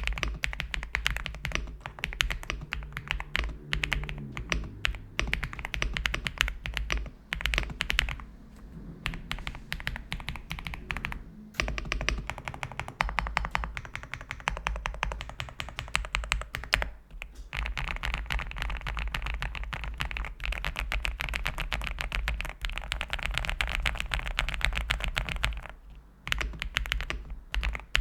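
F108 mechanical keyboard with Lava switches being typed on: quick runs of keystroke clicks with short pauses, the longest and densest run near the end. A steady low hum sits underneath.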